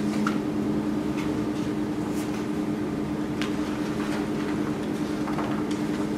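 A steady hum with two held low tones, with faint rustles and ticks of book pages being leafed through scattered across it.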